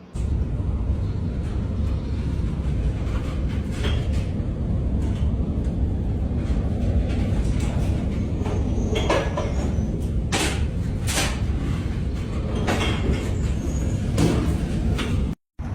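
Steady low rumble of a ship at sea in heavy weather, with several sharp knocks and bangs, most of them in the second half.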